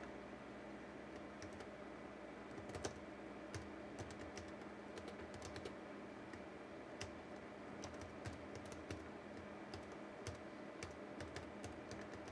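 Typing on a computer keyboard: irregular, faint key clicks, with a steady low hum underneath.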